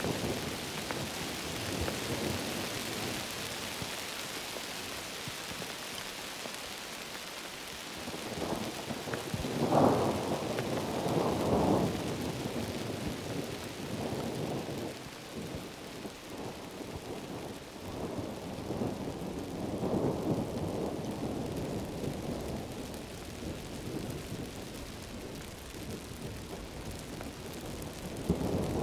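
Heavy tropical rain falling steadily through forest, with rolling thunder that swells loudest about ten seconds in, again around twenty seconds and near the end.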